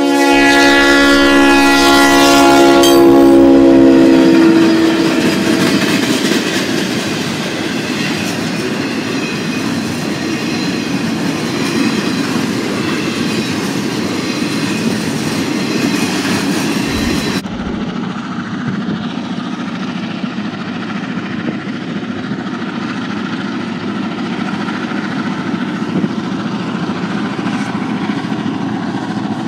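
A Norfolk Southern diesel locomotive sounds its multi-note air horn, a loud chord held for about four seconds at a grade crossing, and then its train of rail-loaded flatcars rolls past with steady wheel-on-rail clatter. About 17 seconds in, the sound changes abruptly to a quieter, steady rumble of other diesel locomotives running.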